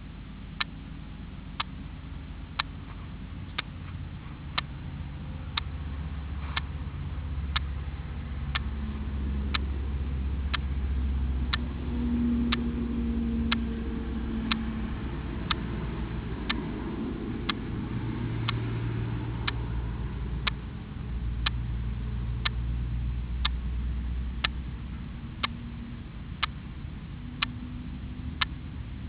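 Sharp ticking, about one tick a second, keeping an even beat throughout, over a low rumble that builds about five seconds in and fades after about twenty-four seconds.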